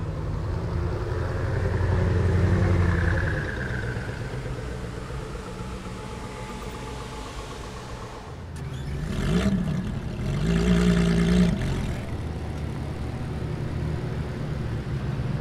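Koenigsegg twin-turbo V8 hypercar running at low speed, swelling in revs about two seconds in, then revved briefly twice between about nine and eleven seconds in before settling back to a steady idle.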